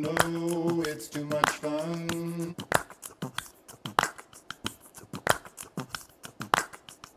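Background music with voices: held sung or hummed chords for the first two and a half seconds, then only sharp percussive clicks at about three or four a second, which stop abruptly right at the end.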